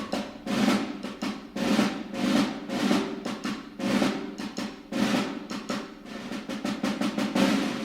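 Fireworks bursting in a steady run of sharp bangs, about two a second, that come in a rapid volley from about six seconds in, over the show's music.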